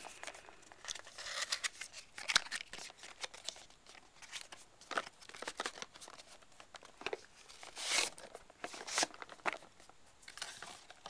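Hands handling and opening a boxed Flip Mino camcorder's packaging: irregular scrapes, rustles and light knocks. The loudest are two scraping rushes about eight and nine seconds in.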